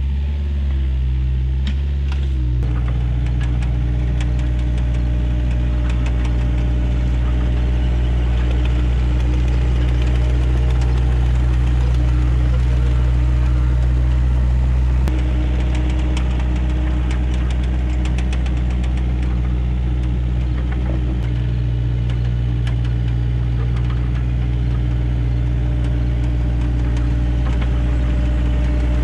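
Excavator's diesel engine running steadily at working revs, its note shifting slightly a couple of times as the machine works, with scattered light clicks and knocks over it.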